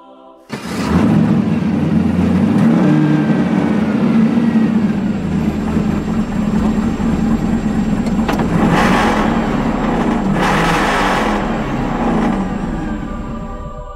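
Felino cB7's V8 engine firing up with a sudden start about half a second in, then running at idle and revved twice with throttle blips in the second half, easing off near the end.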